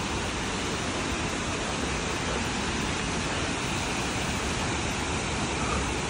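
Waterfall's falling water making a steady, even rushing noise.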